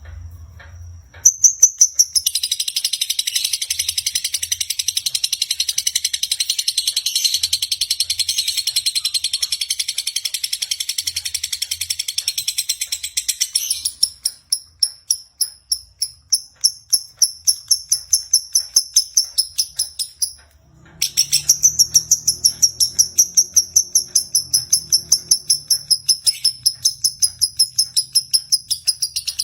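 Lovebird singing a long, rapid high-pitched trill in the choppy 'konslet' style: a dense continuous run for about twelve seconds, then a string of separate quick chirps, a brief break about twenty seconds in, and another run of rapid chirping.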